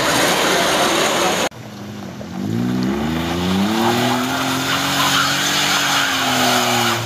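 Loud, dense noise of a Mitsubishi box truck passing close, which cuts off abruptly about a second and a half in. Then a Daihatsu Sigra's engine revs up and holds at high revs, sagging slightly near the end, as the car strains up a loose dirt ramp with its wheels spinning and throwing dust.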